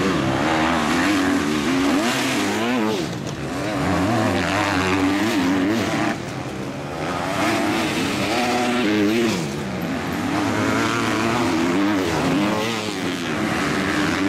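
Motocross bike engines revving hard and dropping back again and again, the pitch swinging up and down with gear changes and throttle through the corners. The sound dips briefly a few times.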